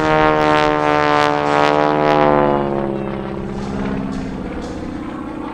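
A North American T-6/SNJ Texan's supercharged Pratt & Whitney R-1340 Wasp radial engine and propeller flying past. It is loudest in the first half. About two seconds in the pitch drops slightly and the drone fades as the plane moves away.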